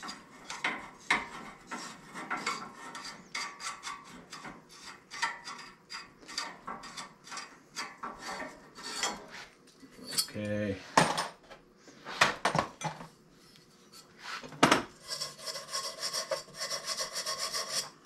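Metal bicycle parts being worked loose and taken apart by hand: a long run of quick scraping and rubbing strokes, a short squeak about two-thirds of the way through, a few sharp knocks, and a fast rattling near the end.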